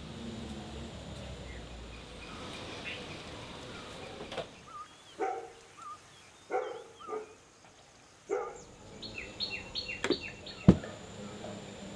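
A dog barks several times, then a bird gives a quick run of high, falling chirps. A sharp knock near the end is the loudest sound.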